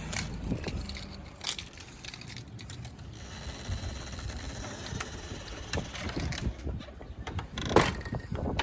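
Car keys jingling and clicking in hand, a light scattered rattle with a sharper click about a second and a half in and another near the end.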